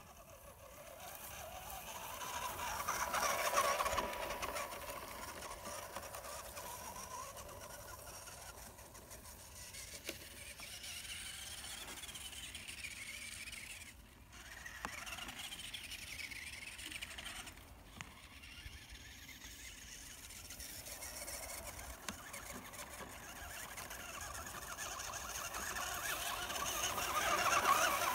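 Tamiya CC-01 Landfreeder 1/10 scale 4WD RC truck's electric motor and gearbox whining as it drives over rough ground, rising and falling with throttle and distance. The whine drops out briefly twice about halfway through and is loudest near the start and near the end.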